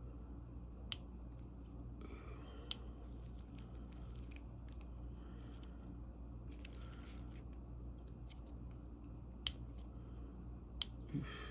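A metal pick scraping and clicking against the small coil retaining ring on the head of a Walden 1151RB ratchet as it is pried up. Faint scratching is broken by a few sharp metal clicks.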